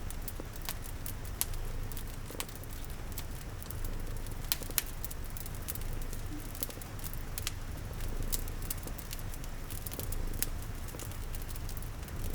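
Layered ambience: a cat purring as a constant low rumble, a wood fire crackling with scattered sharp pops, and a soft patter of rain.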